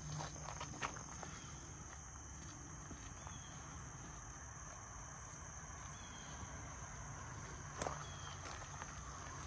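Insects trilling in a steady high-pitched chorus, with a few faint crunches and snaps underfoot, one louder near the end.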